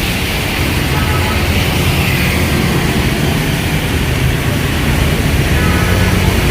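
Steady rumble of vehicle engines and street traffic, with a constant low hum and no breaks.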